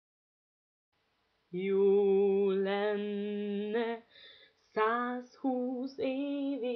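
Silence for about a second and a half, then a woman singing alone with no instruments heard. She holds a long first note with vibrato, then sings shorter phrases with brief breaks between them.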